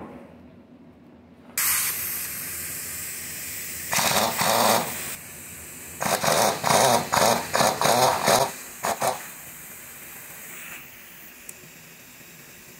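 Pneumatic impact wrench hammering in short bursts as it loosens bolts on the engine front: one burst about four seconds in, then a string of about six bursts and two quick blips. A steady hiss of compressed air runs between the bursts.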